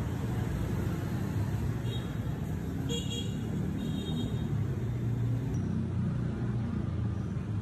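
Road traffic running steadily in a low, continuous rumble, with a few brief high-pitched tones about two, three and four seconds in.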